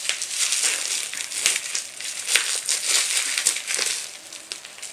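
Plastic packaging crinkling and crackling as it is handled and torn open, a dense string of sharp crackles.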